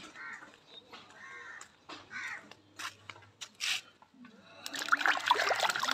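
Water splashing and dripping as a sprig of curry leaves is dipped and swished in a bucket of water, starting about four and a half seconds in. Before that, three short calls about a second apart.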